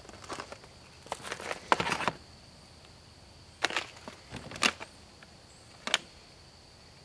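Freeze-dried meal pouch crinkling as it is handled, in several short rustling bursts.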